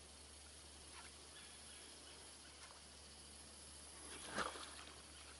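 Near-silent ambience over open water, with one short splash on the water surface about four seconds in.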